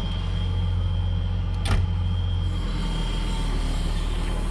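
Excavator diesel engine running steadily with a low hum and a thin, steady high whine over it, and a single sharp knock just under two seconds in.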